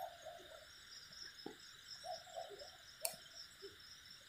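Steady night chorus of insects, an even high buzz, with a few faint clicks and knocks, the sharpest about three seconds in.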